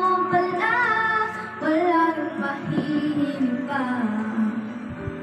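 A girl singing into a microphone over music, holding long notes with a wavering vibrato.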